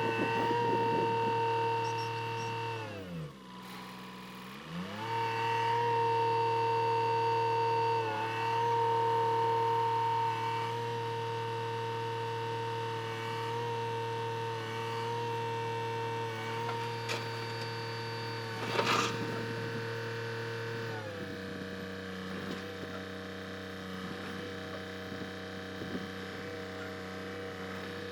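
A vehicle engine running steadily. Its pitch dips and comes back up about three to five seconds in, then drops to a lower steady note about 21 seconds in, with one short sharp sound shortly before that.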